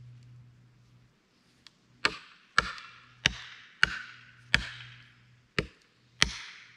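Seven hard blows struck into the base of a hemlock being felled, sharp and ringing, one every half to three-quarters of a second from about two seconds in.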